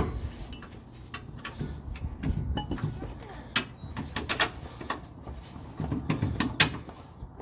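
Irregular clinks and knocks of metal parts being handled while a new rear shock absorber and its mounting bolts are fitted to the truck.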